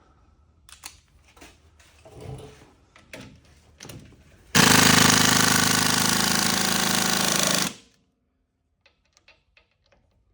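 An impact wrench hammering for about three seconds, starting a little under halfway in, with light clinks and knocks of tools before and after.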